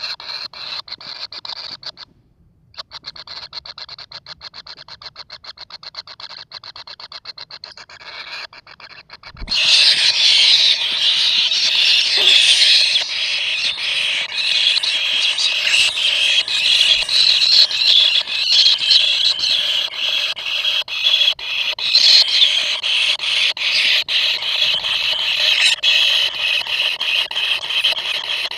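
Kingfisher nestlings calling: first a fast, even run of ticking notes, then, about a third of the way in, a loud, harsh, continuous chorus of squealing begging calls.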